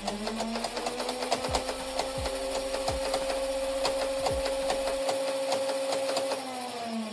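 Nerf Ultra AMP's battery-powered flywheel motors spinning up, running steadily for about six seconds with rapid, irregular clicking from the mechanism, then winding down near the end.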